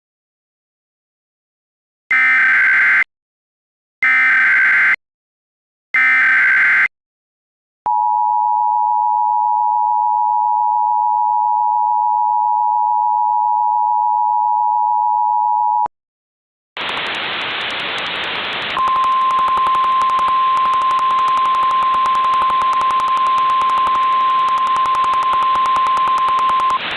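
Emergency Alert System signals: three one-second screeching SAME header data bursts, then the two-tone EAS attention signal held for about eight seconds. After a short gap, a hiss of radio static comes in, and a single steady NOAA Weather Radio alert tone sounds over it for about eight seconds, heralding an emergency alert.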